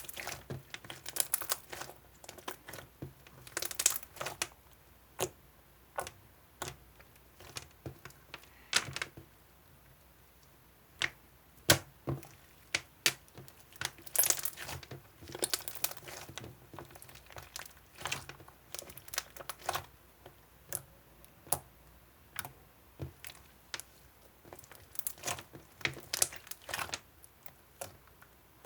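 Irregular small clicks and short crinkling bursts, like close-up handling of objects, with no steady rhythm.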